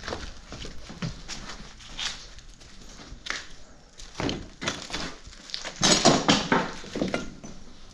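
Footsteps and irregular knocks, scuffs and rustles of junk being stepped on or brushed against, with a louder scraping rustle about six seconds in.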